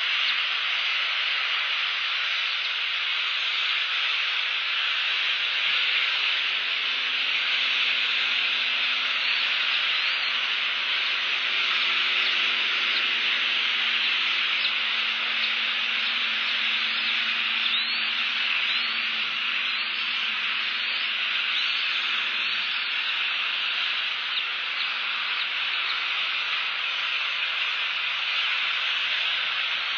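Steady heavy rain, an even unbroken hiss.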